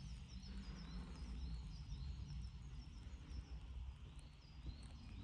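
Small birds chirping, a steady run of short high notes repeated several times a second with occasional rising calls, over a low steady rumble.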